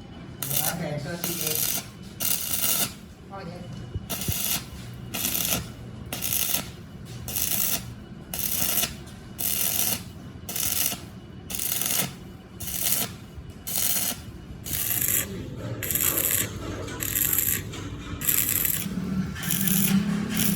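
Rhythmic rasping strokes of a hand tool working metal, about one stroke a second, as a gearbox main shaft is worked by hand.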